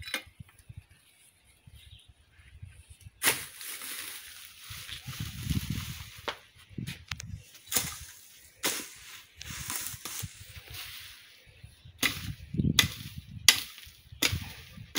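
Garden hoe chopping into dry soil and weeds: a string of sharp, irregular strikes, quicker near the end, with rustling of cut plants between them.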